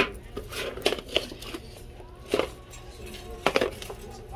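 Boxed merchandise being handled on a store shelf: several sharp knocks and rustles of cardboard packaging, irregularly spaced.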